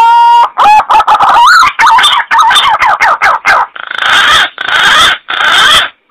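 Punai (green pigeon) call played as a hunting lure: a long rising whistle, then a run of quick notes that glide up and down, ending in three harsh rasping bursts.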